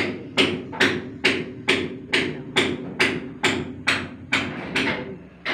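Steady hammer blows on wooden formwork and props, about two strikes a second: workers knocking apart the forms under a freshly poured concrete slab.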